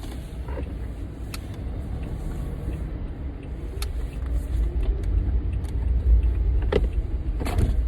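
Low steady rumble inside a car's cabin, growing a little louder toward the end, with a few scattered sharp clicks.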